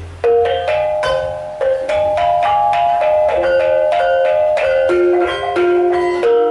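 Javanese gamelan playing: bronze metallophones and kettle gongs strike a quick run of ringing notes, about four a second, entering sharply a fraction of a second in.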